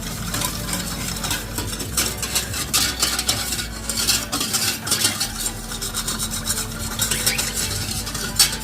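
A utensil stirring milk mixed with sugar and cornflour, clinking and scraping against the sides and bottom of the container in quick, irregular strokes, dissolving the cornflour so no lumps form.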